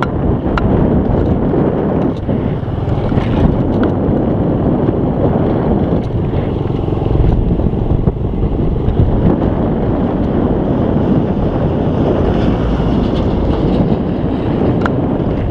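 Steady wind rush buffeting the microphone on a moving motorcycle, with the bike's running and road noise mixed in.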